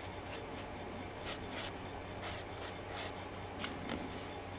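Graphite pencil sketching on paper: a string of short, scratchy strokes at an uneven pace, a few each second, over a faint low hum.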